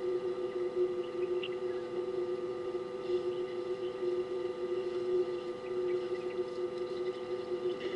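A steady electrical hum made of a few held tones, with a handful of faint, short high ticks or chirps above it.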